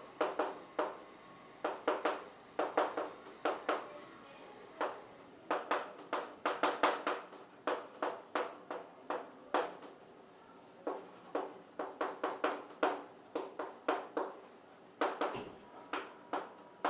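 Chalk writing on a blackboard: quick clusters of sharp taps and short scratches as each word is written, with brief pauses between the clusters.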